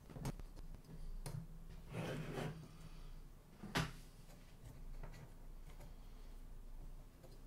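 Handling noise from a cassette deck mechanism as a new rubber drive belt is fitted: a few small clicks and knocks of plastic and metal parts, with a brief rubbing rustle about two seconds in and the sharpest click a little under four seconds in.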